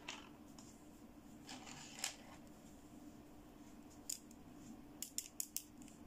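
Light clicks and taps of pink plastic toy bangle bracelets being picked up and handled, with a soft rustle about a second and a half in and a quick run of four clicks near the end. A faint low hum runs underneath.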